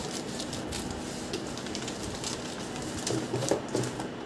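Scissors cutting through a plastic courier mailer, and the mailer crinkling and rustling as it is opened and a boxed item is pulled out, with many small crackles.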